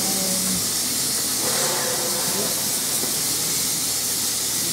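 Steady hiss of steam escaping from a Vogel-era NZR F class saddle-tank steam locomotive standing in steam.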